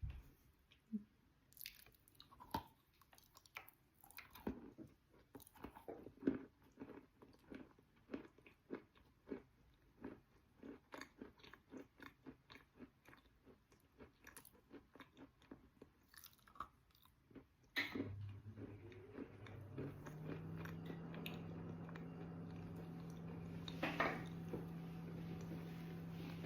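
Close-up chewing and crunching of wet chalk: a quick run of short crunches and bites. About two-thirds of the way through, a steady low hum comes in underneath and the chewing becomes sparse.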